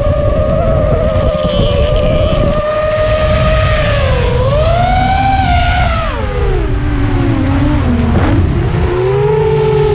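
Racing engine of an ice-racing vehicle running hard at high revs, climbing briefly about halfway through, then dropping over a few seconds and settling at a lower steady pitch.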